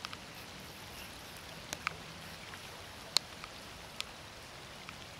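Light rain: a steady hiss, with scattered sharp ticks of single drops striking close by, about five in a few seconds at uneven intervals.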